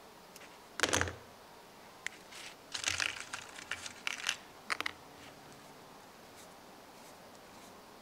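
A pocket knife stripping the insulation from the wires of a black electrical cord, with handling of the cord: a sharp scrape about a second in, then a run of short crinkly scraping and tearing sounds, and a click near the middle.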